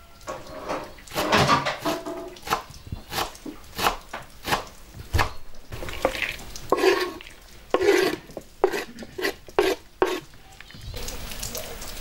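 A utensil clinking and scraping against a bowl in quick, irregular strokes as food is stirred and mixed, some strikes ringing briefly. About a second before the end the clinking stops and a steady hiss takes over.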